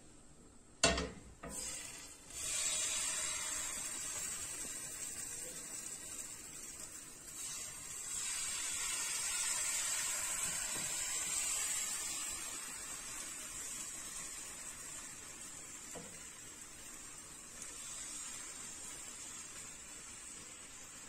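Crêpe batter sizzling as it is poured into a hot frying pan, the hiss swelling and then slowly dying down. A sharp knock about a second in.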